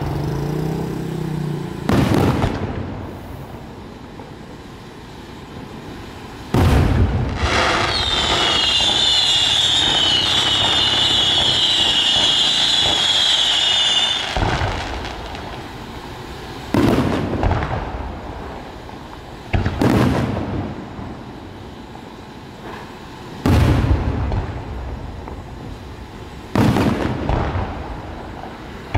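Aerial firework shells bursting overhead: about seven sharp booms a few seconds apart, each dying away over a second or two. A shrill, wavering whistling runs for about seven seconds, starting about seven seconds in.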